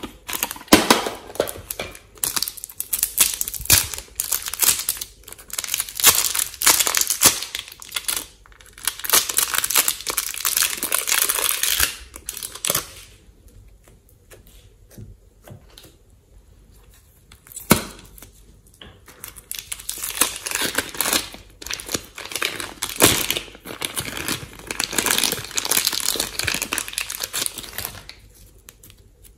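Thin plastic bag crinkling and rustling in repeated bursts as a bag of clay is handled and emptied, with a quieter stretch about halfway through broken by a single sharp click.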